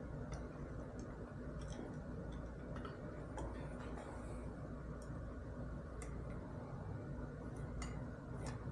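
Light, irregular clicks and taps of small hand tools and metal mounting parts being handled and fitted, roughly one a second, over a steady low background hum.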